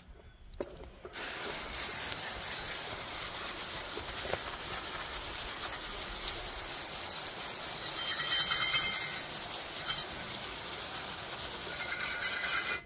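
Garden hose spray nozzle jetting water onto a lawn mower's muffler, rinsing the degreaser off it: a loud, steady hiss of spray that starts about a second in.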